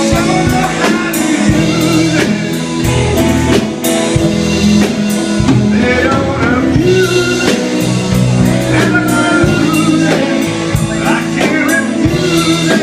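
A live band playing a blues-rock song: a sung vocal over guitar and a drum kit, at a steady beat.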